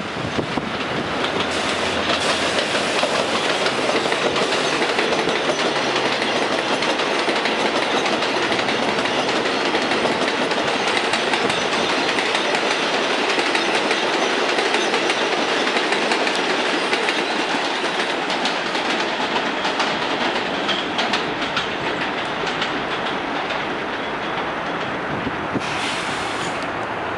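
New York City Subway R188 train running at speed through an elevated station on steel structure: a continuous loud rumble with steel wheels clattering over the rails, easing slightly near the end.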